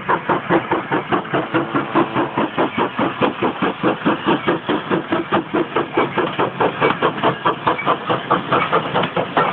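Small steam tank locomotive chuffing as it hauls its coaches past, a quick, even rhythm of exhaust beats, very noisy.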